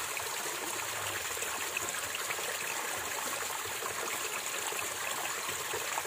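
Forest stream running steadily.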